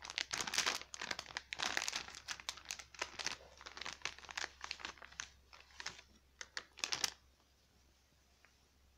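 Thin plastic packaging bag of a WARS hygiene kit crinkling and rustling in quick, irregular crackles as it is handled and opened by hand; the crinkling stops about seven seconds in.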